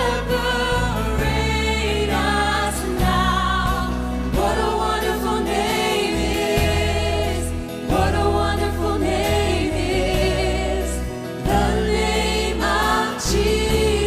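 Live contemporary worship band playing and singing: several voices, mostly women, sing together over acoustic guitar, bass guitar, keyboard and drums.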